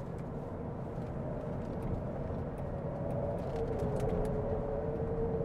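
Cabin noise of a Cadillac Lyriq electric SUV driving at speed: a steady rumble of road and tyre noise, with a faint whine that grows louder in the second half.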